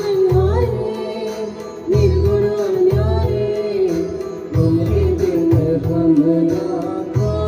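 Indian devotional bhajan music without words: a single melody line with sliding, ornamented notes over a low drum pattern that strikes about once a second.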